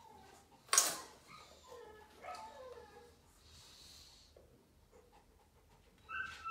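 Dog whining in short, high notes that slide down in pitch, in two spells: one about a second in and another near the end. A single sharp knock about a second in is the loudest sound.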